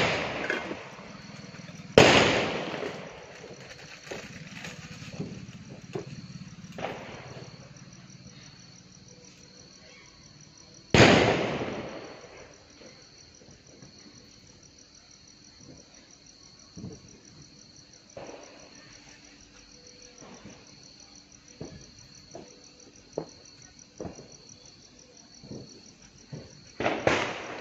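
Four loud, sharp bangs: one at the start, one about two seconds in, one about eleven seconds in and one near the end. Each echoes away over about a second. Under them runs a steady high chirring of insects, with light scattered clicks.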